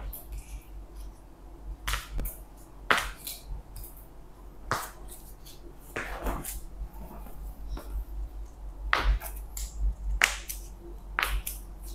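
A series of sharp, brief clicks and snaps, one every second or two, from hands-on chiropractic treatment of a patient lying down.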